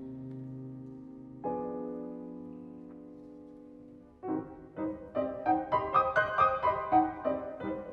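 Grand pianos playing classical music. A held chord fades, a second chord is struck about a second and a half in and dies away, then about four seconds in a run of quick, short notes starts up and grows louder.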